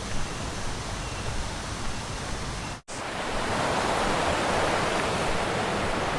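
Steady rushing of river water, an even noise with no pitch, cut off abruptly for a moment about three seconds in.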